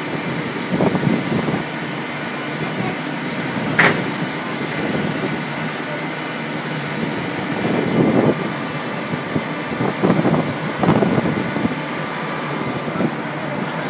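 Steady drone of a tuna purse seiner's machinery on deck, with a brief sharp sound about four seconds in and several short louder rushes of noise later on.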